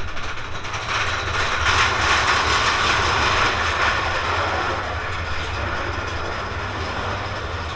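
Mine-train roller coaster running along its track, heard from a seat in the moving train: a steady rumble and rattle of wheels on rail, loudest about two seconds in and easing a little after.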